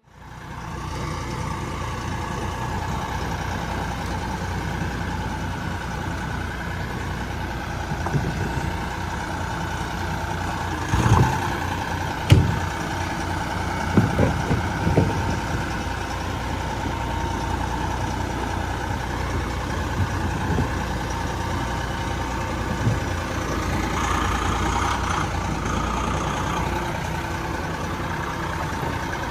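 Vermeer SC48TX stump grinder running steadily under power, with a cluster of sharp knocks about eleven to fifteen seconds in and another near the end.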